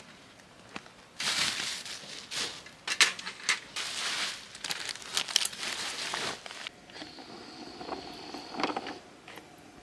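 A plastic bag rustling and crinkling as camping gear is pulled from a canvas storage bag, with a few sharp clicks and knocks of items being handled. Near the end the rustling gives way to a faint steady hum.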